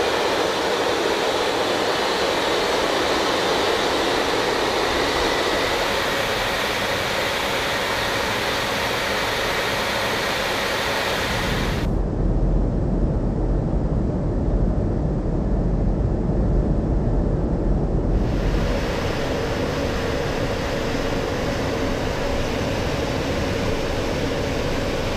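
Steady in-flight noise inside a B-52 bomber's crew compartment: jet engines and rushing air. For about six seconds in the middle it changes to a deeper, duller rumble with the treble gone, then the brighter cabin noise returns.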